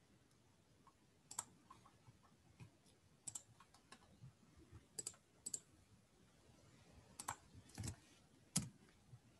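Near silence broken by about seven faint, sharp clicks at irregular intervals, typical of computer keys and mouse buttons being pressed.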